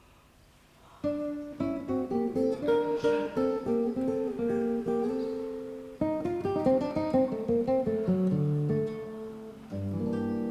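Acoustic guitar playing a plucked, arpeggiated melody that starts about a second in. The phrase begins again about six seconds in and settles onto a held low chord near the end.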